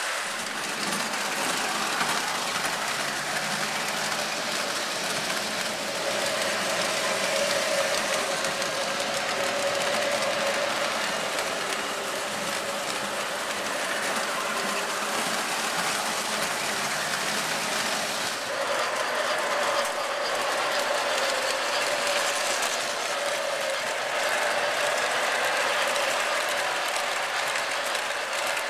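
O-gauge model trains running on three-rail track: a steady mechanical whirring and rattling of the electric motors and wheels. The sound shifts about two-thirds of the way through.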